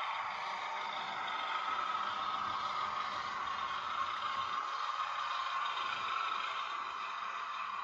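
Sound-fitted OO gauge model Class 33 diesel locomotive running along the layout. Its small speaker plays a steady diesel engine sound, mixed with light running noise from the wheels on the track.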